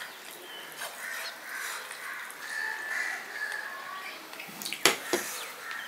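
Birds calling in the background, with a couple of sharp clicks about five seconds in.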